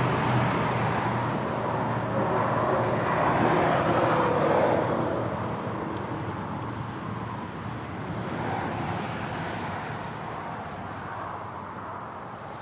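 Motor vehicle noise without words, growing louder to a peak about four seconds in and then slowly fading away.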